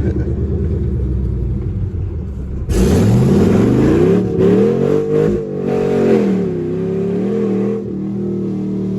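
Chevrolet Camaro SS 6.2-litre V8 with long-tube headers: a low exhaust rumble, then, about three seconds in, a hard throttle pull with the engine note climbing steeply and loud. The pitch then wavers and drops, settling into a steadier drone near the end.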